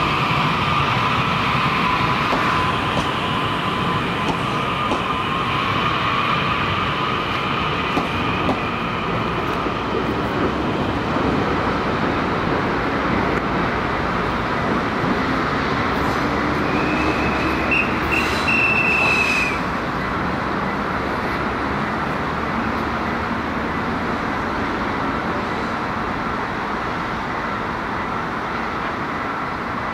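Electric passenger trains rolling past on curved track, with steady high squeals from the steel wheels during the first several seconds. A brief high-pitched tone sounds about two-thirds of the way through.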